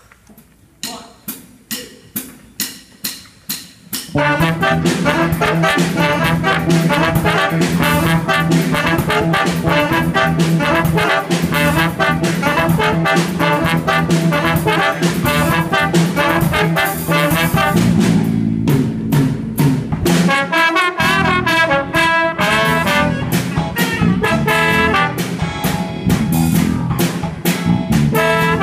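A school jazz combo opens a tune. About three seconds of sharp, evenly spaced percussive hits come first, then at about four seconds the full band comes in: trumpet, trombone and saxophone over drum kit and electric bass. The band drops out briefly about three-quarters of the way through, then plays on.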